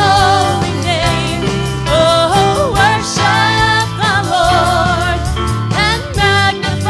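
Worship band music with a wordless, wavering singing voice over steady bass and a regular beat.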